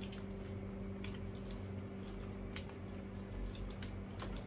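Small scattered clicks and squishy handling noises of people eating fried chicken, over a steady low hum.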